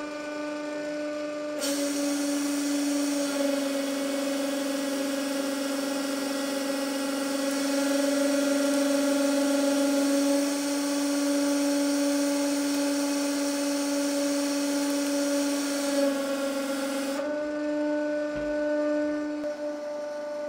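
Hydraulic press's pump motor whining steadily while the ram pushes a screw into wood. A loud hiss joins about two seconds in and cuts off suddenly near the end, and the whine sits slightly lower in pitch while the hiss lasts.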